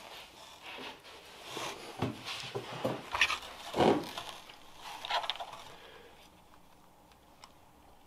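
Irregular scraping and rustling of handling: hands and clothing moving over a workbench and light fittings, loudest a little before halfway, then dying down for the last couple of seconds.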